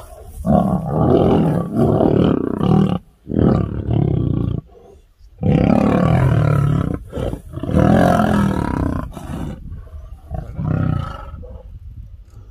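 Male lions fighting at close quarters, roaring in about five loud, ragged bursts of a second or two each. There is a short lull about five seconds in, and the roaring dies down near the end.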